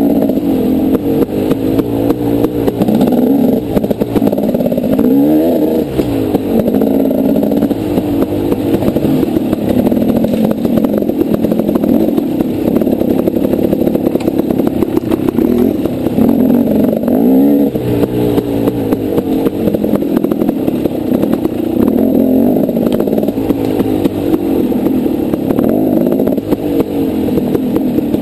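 Dirt bike engine running hard along a rough trail, the revs rising and falling again and again with the throttle. Short knocks and rattles from the bike over bumps run throughout.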